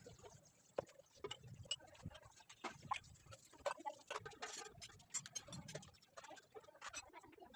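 Scattered light clicks and taps at an irregular pace, a few to several a second, over a faint low hum.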